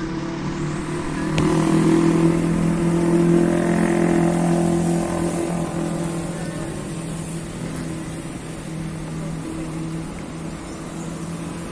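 Engine hum of a road vehicle passing along the boulevard, growing louder about a second and a half in and then slowly fading away.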